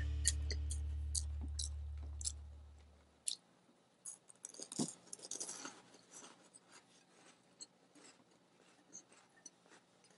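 A sustained musical chord fades out over the first three seconds. Then come faint scattered clicks and taps as small, soft almond meringue cookies are handled and stacked on a ceramic plate, with quiet chewing.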